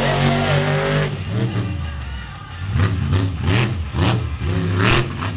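Monster truck engine revving hard in repeated bursts, its pitch rising and falling, with loud surges near the middle and the end.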